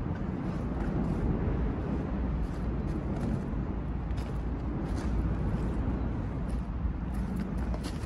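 Steady low rumble of road traffic under a concrete bridge, with short faint scrapes of footsteps on stones and mud scattered through it.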